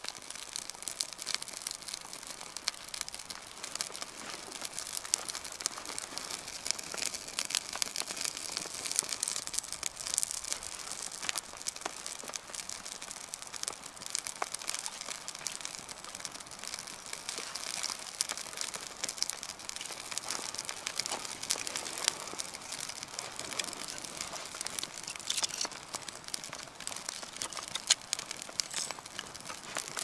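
Small campfire of kindling crackling and snapping steadily as it catches.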